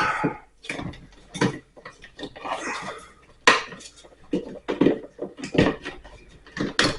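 Irregular clicks, clinks and light knocks of wires and hardware being handled as stiff electrical wires are folded and pushed back into an electrical box.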